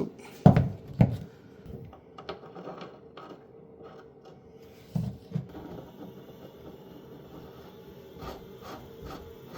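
Plumbing fittings and tools being handled while threaded joints are doped and assembled: two sharp knocks near the start, two more about five seconds in, and quiet scraping and rubbing in between.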